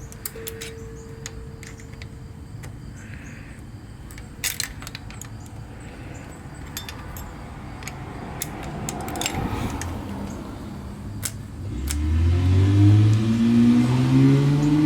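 Hand tools working a tight bolt on a motorcycle's carburetor intake manifold: scattered metal clicks and clinks of a wrench or ratchet and extension on the bolt and against the engine. About twelve seconds in, a louder pitched sound rises over them.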